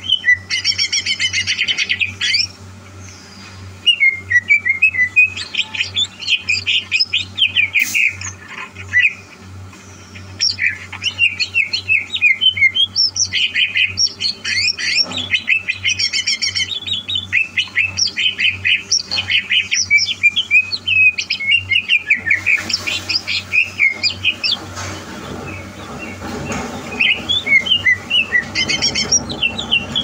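Cucak hijau (green leafbird) singing: rapid, varied chirping and warbling phrases broken by short pauses, over a low steady hum.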